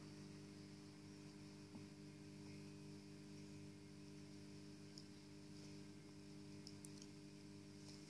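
Near silence: a steady low hum with a few faint clicks about five and seven seconds in.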